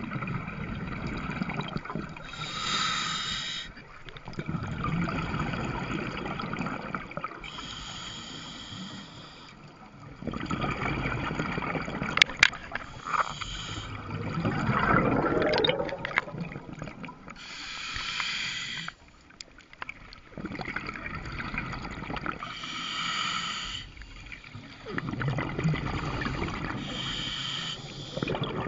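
Scuba diver breathing through a regulator underwater: a hiss of air on each inhale about every five seconds, alternating with the low bubbling rumble of each exhale. A sharp click about twelve seconds in.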